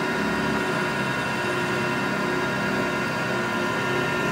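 Okamoto 12 x 24 surface grinder's spindle running with no wheel fitted: a steady, even hum with several steady higher tones, running nice and smooth.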